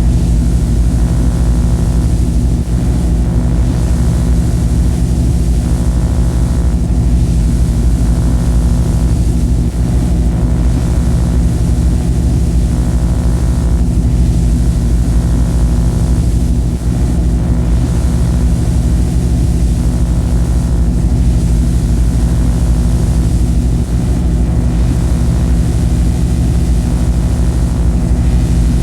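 Loud, unbroken electronic noise drone: a dense stack of steady low hums under a wash of hiss. A faint, higher throb comes back about every two seconds, like a machine whirring.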